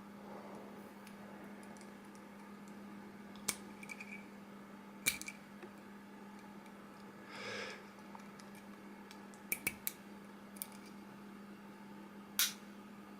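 Scattered sharp clicks and taps of small steel pistol parts being handled and fitted into the slide of a Taurus PT 24/7 Pro pistol during reassembly, a few single clicks and a quick cluster of three about two-thirds of the way through, over a steady low hum.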